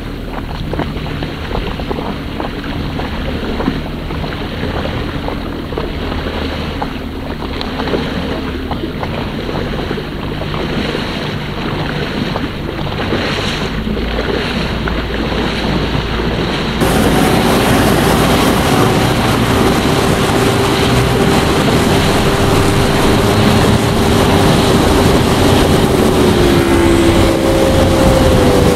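Motorboat engine running under way, with water rushing past the hull and wind on the microphone. About 17 s in the sound changes abruptly and gets louder, with a steady engine whine that shifts in pitch near the end.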